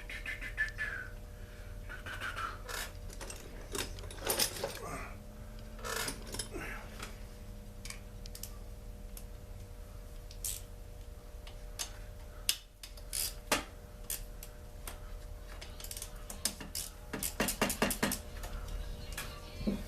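Tools and small metal and plastic parts clicking and clinking as a Poulan Pro chainsaw is taken apart, with a quick run of clicks near the end, over a faint steady hum.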